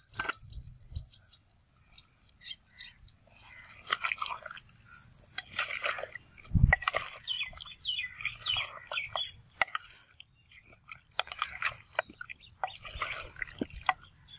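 Metal ladle stirring chicken pieces in a clay pot of karahi: irregular scrapes, clinks against the pot and wet squelching, with a high hiss twice in the first six seconds.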